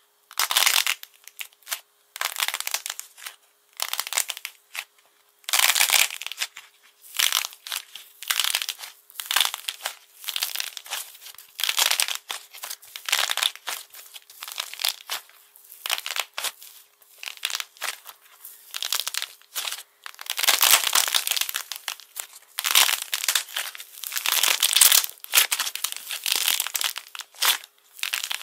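Hardened glossy coating on a ball of soft clay crackling and crinkling as hands squeeze and knead it, breaking the shell into flakes. It comes in repeated crackly bursts with short pauses.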